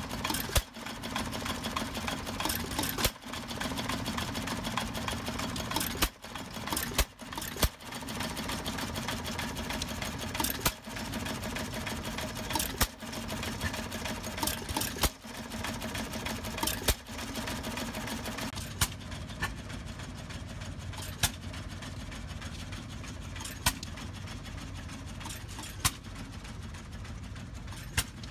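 Antique single-cylinder stationary gas engine running hit-and-miss: a sharp exhaust pop every two to three seconds, at uneven gaps, over a steady mechanical hum.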